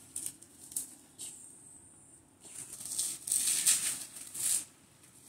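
Plastic bubble wrap crinkling and rustling as hands pull at it around a cardboard box: a few small crackles at first, then a louder stretch of rustling from about halfway in until near the end.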